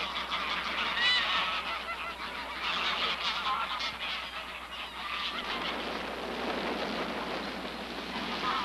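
A large flock of greylag geese honking and chattering, with many calls overlapping into a continuous din.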